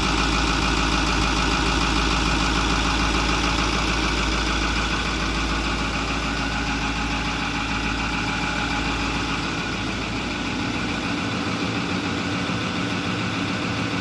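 2008 Ford F-250's 6.4-litre V8 turbo diesel idling steadily with its diesel clatter, running again after a new electric fuel pump was fitted and the fuel system bled. The idle eases slightly in the second half.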